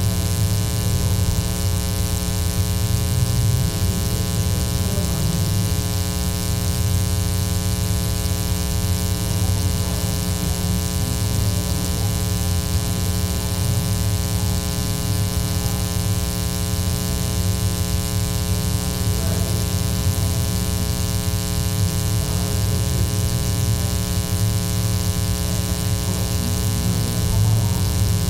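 Steady electrical mains hum in the audio feed, a buzz made of a long ladder of overtones that stays unchanged throughout and covers everything else. Faint talking can be made out beneath it.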